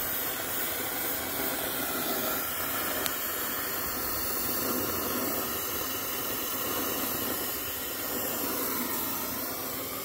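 Oxy-acetylene torch with a rosebud tip burning steadily on a copper refrigerant joint being brazed: a continuous hissing rush of flame.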